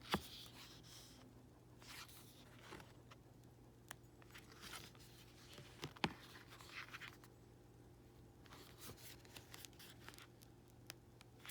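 Faint handling of a glossy album photobook: pages rustling as they are turned, with a few light taps and clicks.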